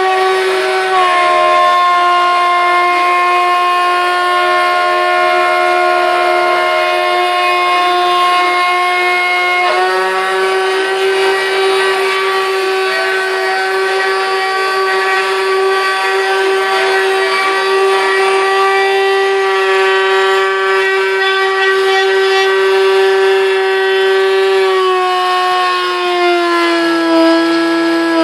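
CNC router spindle running at high speed while a 6 mm end mill mills aluminium plate: a loud, steady whine with many overtones over a light cutting hiss. Its pitch dips slightly near the end.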